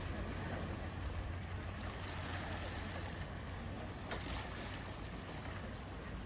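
Sea waves washing and splashing around a rocky islet, with wind buffeting the microphone as a steady low rumble.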